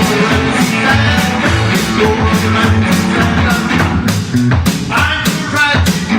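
Rock and roll band playing with drums, bass and electric guitar over a steady driving beat.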